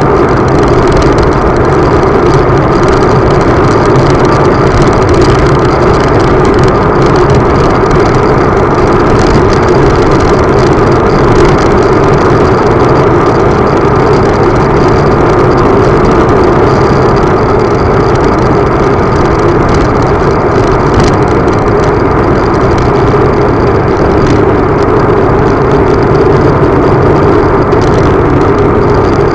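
Vehicle engine running under way at a steady, unchanging pitch, loud and close to the microphone.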